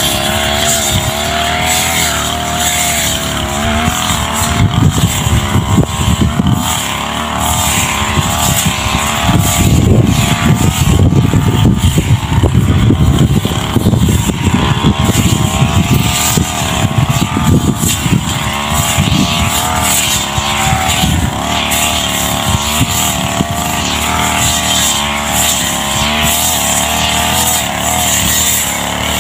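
Backpack brush cutter's petrol engine running at high revs while cutting tall grass, its note rising and falling as the head swings through and out of the grass. A rough low rumble comes and goes, loudest through the middle.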